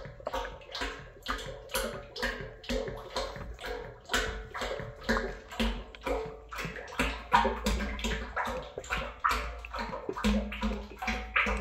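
Hydraulic oil gurgling out of an upended 5-gallon plastic pail into an excavator's hydraulic tank filler, in a quick, uneven run of glugs.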